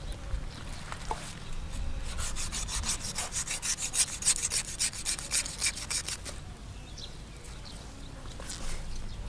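Knife blade scraping along a shark's rough skin in a fast run of rasping strokes, about six a second, lasting about four seconds, with slower scattered scrapes around it.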